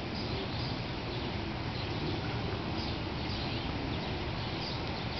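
Steady outdoor background hiss with faint, scattered high chirps, likely from small birds.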